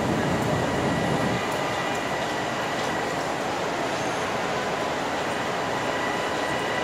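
Long Island Rail Road M3 electric train car running beside the platform: a steady hum with a faint high whine, its low rumble easing about a second and a half in.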